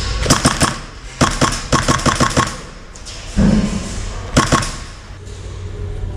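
HPA airsoft MP7 firing quick bursts of sharp snapping shots: a short burst, then a rapid string of about eight, then two more shots near the end. A dull thump comes a little past halfway.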